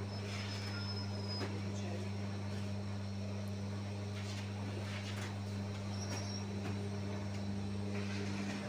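Steady low hum of a bakery's bread oven and its running machinery, with scattered light knocks and clatter as loaves are handled.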